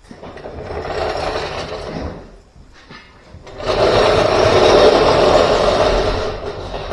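A small motor-driven tool running in two bursts, a short one at the start and a longer, louder one from about halfway through.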